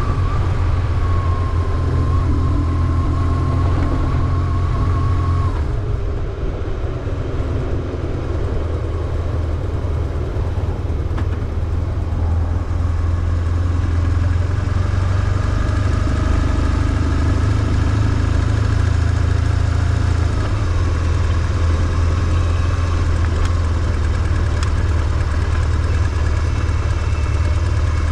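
BMW R1150GS's air- and oil-cooled boxer twin running steadily with a deep low note, easing off briefly about six seconds in.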